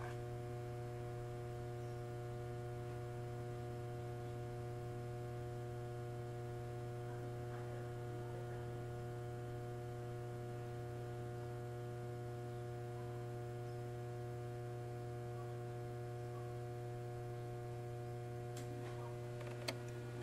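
Steady electrical hum inside a standing electric railcar: a low drone with several fixed higher tones from the car's onboard electrical equipment. There are a few faint clicks near the end.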